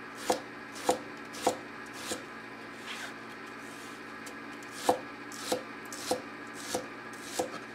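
Chef's knife dicing a shallot on an end-grain wooden cutting board: single sharp knocks of the blade on the wood about every 0.6 s, in two runs with a pause of about two seconds between them.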